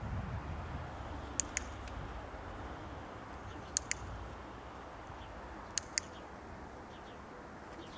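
Three sharp double clicks, about two seconds apart, over a steady low rumble.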